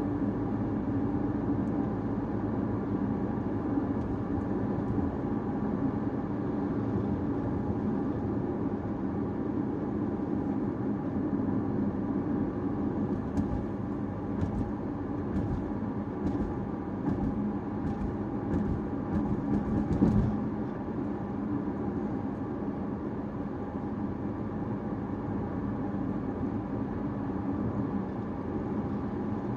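Caoa Chery Tiggo 5x driving: steady engine and tyre rumble. About halfway through comes a run of light clicks roughly one a second, ending in a single thump.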